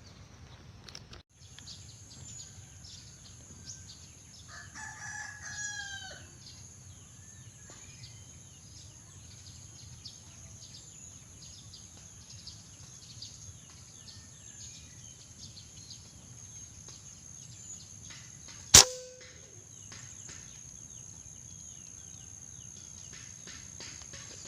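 Steady high-pitched insect buzzing, with a rooster crowing once about five seconds in. A single sharp crack, the loudest sound, comes a little before the end.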